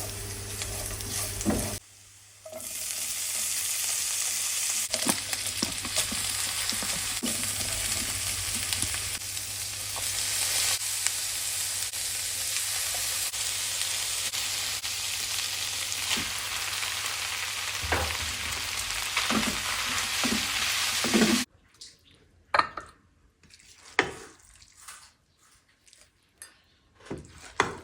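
Mi cha noodles sizzling in a hot pan as they are stir-fried, with a steady hiss and occasional scrapes and knocks of the utensil. The sizzling cuts off suddenly about twenty seconds in, leaving a few light clicks and taps.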